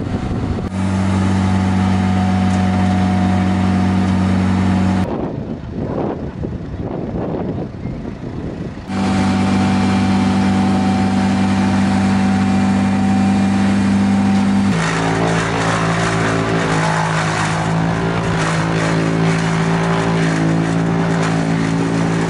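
Tractor diesel engines running at a steady speed, in several stretches with abrupt changes between them and a few seconds of rougher noise about a quarter of the way in. In the last third the engine note shifts and dense crackling joins it: a tractor-driven wood chipper shredding Christmas trees.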